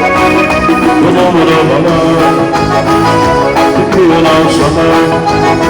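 Band dance music playing, an instrumental passage without sung words.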